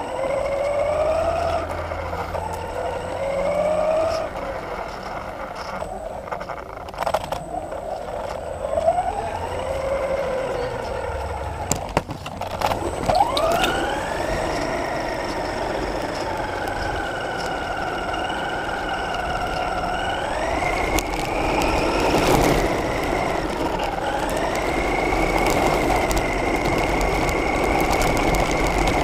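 Radio-controlled model car's motor heard from on board the car, its pitch rising and falling with the throttle over tyre and ground noise. It comes in short bursts at first, with a few sharp knocks partway through. Then it sweeps up and holds a higher pitch at speed, stepping up twice more near the end.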